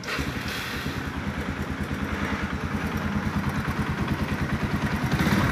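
Yamaha Scorpio 225's single-cylinder four-stroke engine just started and idling with a fast, even beat, growing slightly louder. It runs with a knock from around the cylinder block, which the mechanic provisionally puts down to a worn, loose piston.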